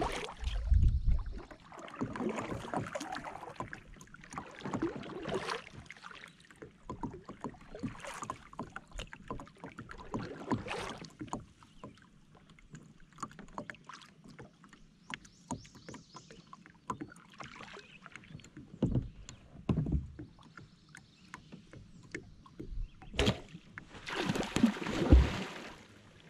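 Double-bladed kayak paddle pulling through calm lake water, with a swishing stroke every two to three seconds over the first dozen seconds. After a quieter stretch come a few knocks and one louder swish near the end.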